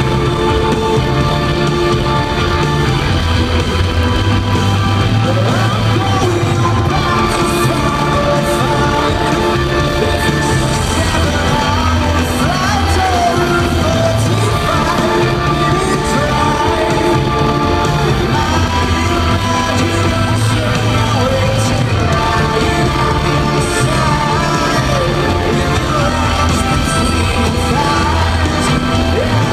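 A rock band playing live in a large arena, recorded from the audience: electric guitars, bass and drums under a sung lead vocal, steady and loud.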